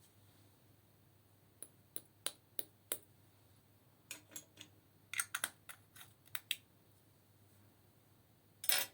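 Slime being worked by hand, giving a run of sharp clicks and pops. About five single clicks come first, then a quicker cluster, and a longer, louder squelch near the end.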